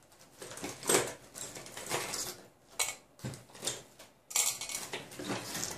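Metal binder clips clinking and rattling as a handful is set down and shuffled on a PCB heatbed: a string of short, sharp clicks.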